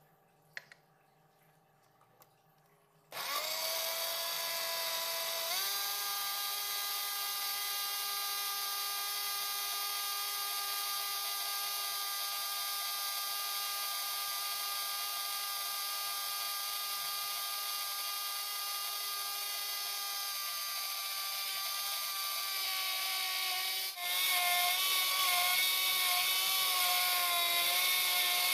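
Electric countertop blender switched on about three seconds in: its motor starts with a rising whine, steps up in pitch once more shortly after, then runs steadily as it blends pineapple and dragon fruit chunks with water. Near the end it gets louder and its pitch wavers.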